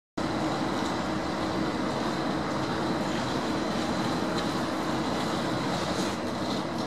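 DB Class 362 diesel shunting locomotive running as it moves slowly along the track, coupled to a double-deck driving trailer. Its diesel engine gives a steady hum with a constant low tone.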